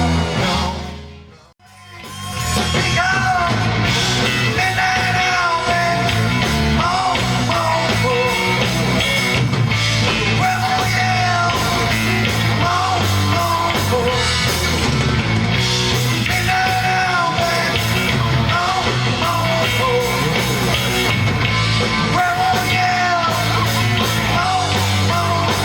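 Loud rock music. One song fades out about a second and a half in, and after a brief gap the next song starts and plays on without a break.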